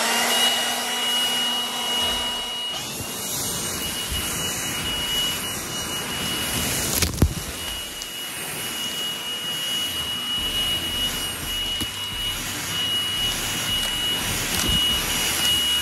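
Milwaukee M18 Fuel 18-volt cordless leaf blower running steadily: a rush of air with a high, steady fan whine, blowing dry leaves across the ground.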